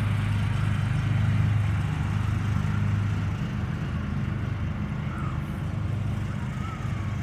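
Engine of a nearby lawn-mowing machine running steadily, a low, even drone.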